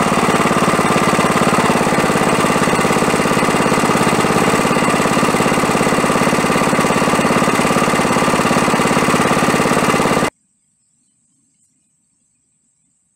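Goldoni two-wheel tractor's engine running at a steady speed close by, with a rapid, even firing beat. The sound cuts off suddenly about ten seconds in, leaving near silence.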